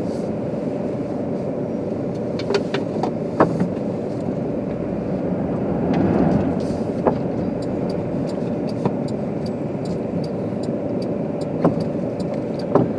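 Car driving on snowy roads, heard from inside the cabin: a steady hum of engine and road noise, with a swell about midway and scattered sharp clicks.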